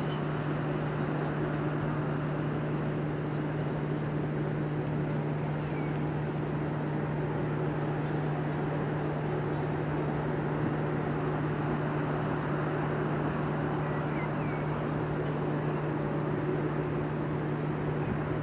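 A steady low hum with a constant background rumble that does not change. Over it, a small bird gives short, high, falling chirps in twos and threes every second or two.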